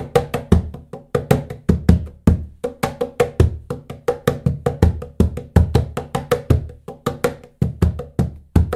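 Handmade birch-ply cajon played by hand with its snare disengaged, giving dry wooden tones without snare buzz. Quick strokes at roughly five a second mix deep bass hits with sharper, brighter slaps in a steady groove.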